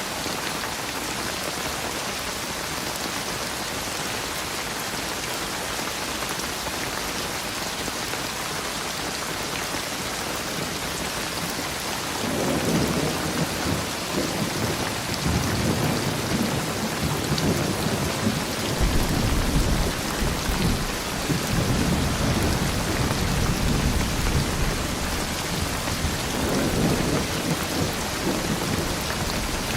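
Steady heavy rain, with thunder rumbling in about twelve seconds in and rolling on, growing deeper from about two-thirds of the way through.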